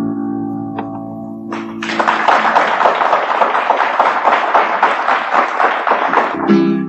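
The final chord of a classical guitar rings out at the end of an estilo. About two seconds in, studio audience applause starts and runs for several seconds. A guitar chord sounds again near the end.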